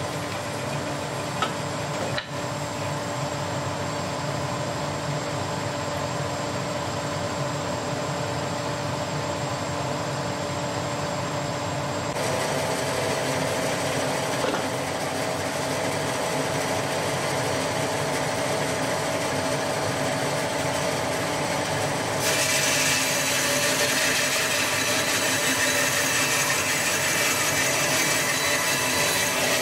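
Charnwood W730 14-inch bandsaw running steadily with a constant hum. From about 22 seconds in, a louder, brighter sawing noise joins it as the blade cuts through a wooden board held against a mitre gauge.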